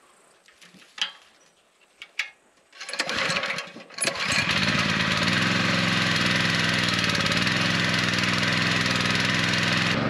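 Cheap Honda-clone petrol water pump being pull-started: a few light knocks, a short burst of cranking about three seconds in, then the small engine catches about four seconds in and runs steadily.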